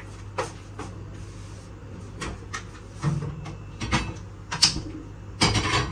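Kitchen utensil clatter: a metal kadhai and other utensils knocked and set down on the stove and counter, a series of sharp clinks and knocks, loudest near the end, over a steady low hum.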